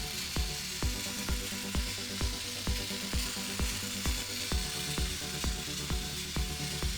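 Background music with a steady kick-drum beat, a little over two beats a second, and held notes, under a steady high hiss.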